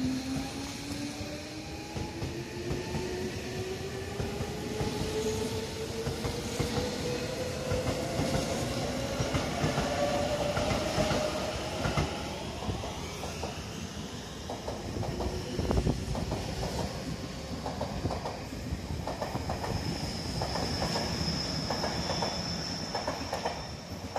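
Electric commuter train pulling away, its traction motors whining in several tones that rise steadily in pitch over about the first ten seconds. In the second half the wheels clatter over rail joints at speed, with a high thin whine near the end.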